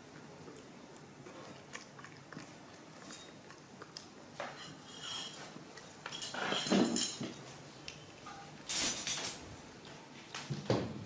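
Baby monkey digging rice out of a large metal pot with its hands: scattered clinks and scrapes on the metal, with a few louder clattering bursts in the second half.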